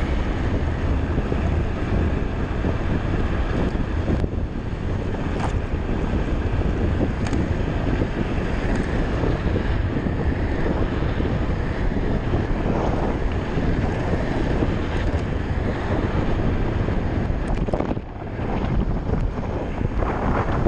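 Wind buffeting the microphone while riding an electric bike at speed: a steady rush that briefly dips about four seconds in and again near the end.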